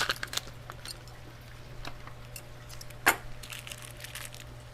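Scattered light clicks and rustles of things being handled, with one sharper knock about three seconds in, over a steady low hum.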